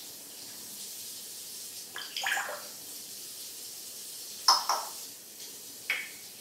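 African grey parrot making three short, sharp calls, the loudest about halfway through, over a steady low hiss.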